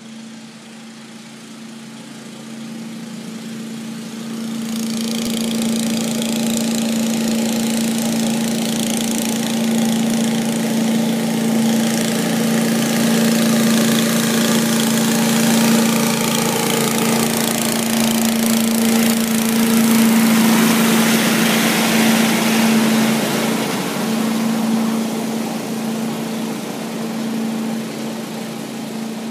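Gas-powered leaf blower running at a steady full speed, a constant engine hum with a strong rush of air, blowing leaves off the track. It grows louder about four seconds in as it comes closer, is loudest about twenty seconds in, and eases off near the end.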